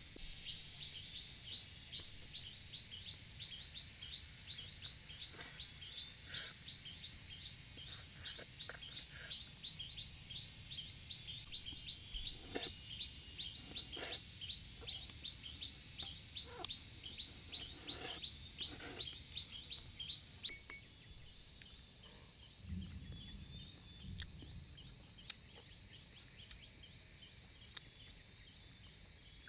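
A rapid run of high chirps, about four a second, over a steady high insect drone; the chirping stops about twenty seconds in, leaving the drone. Soft clicks of a knife and fork cutting grilled meat on a banana leaf sound now and then.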